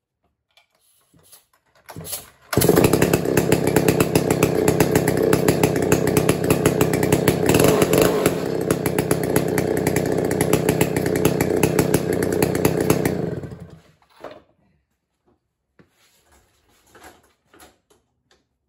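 Stihl 090 137cc two-stroke chainsaw engine, started after a brief sound about two seconds in, running loud for about ten seconds, then cutting out.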